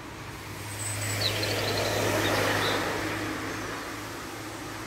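A car passing by, swelling to its loudest about two seconds in and then fading, with a steady low hum under it. A few faint bird chirps about a second in.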